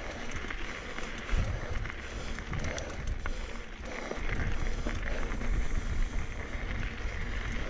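Mountain bike rolling over a dirt trail: tyres crunching and the bike rattling with scattered clicks, and wind rumbling on the microphone in gusts, heavier from about four seconds in.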